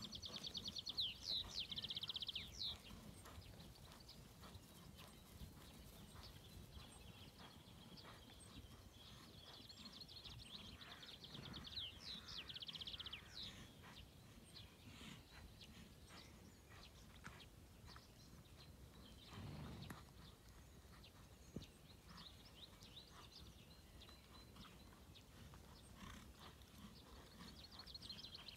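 Quiet outdoor air in which a bird's high trilling song comes and goes three times, near the start, in the middle and near the end. Under it are faint soft hoofbeats of a horse on grass.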